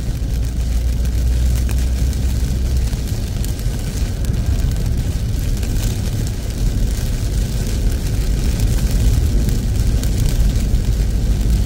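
Heavy rain falling on a moving car's roof and windscreen, heard from inside the cabin: a steady rush with scattered drop ticks over a constant deep tyre and road rumble.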